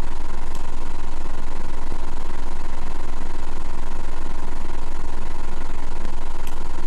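Steady, loud low-pitched drone or hum with a thin steady tone above it and a few faint clicks.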